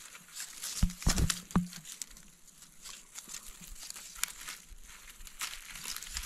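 Dry grass stems and dead leaf litter rustling and crackling as a hand rummages at the base of a fern clump to pick fiddleheads, with a few louder knocks about a second in.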